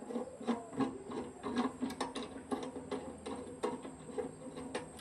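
Quick, uneven scraping strokes, several a second, typical of hand work such as scrubbing or filing a machine part.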